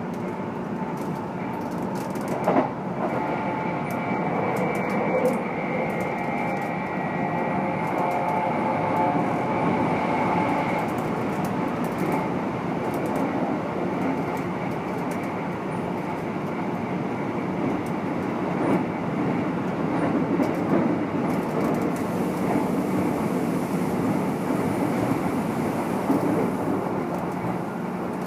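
Keikyu New 1000 series electric train running at speed, heard inside the motor car: steady running noise with scattered rail-joint clicks. For several seconds a steady whine from the Toyo IGBT VVVF drive and MB-5121-A traction motors sits over it, a set known for unusually loud, abnormal motor noise.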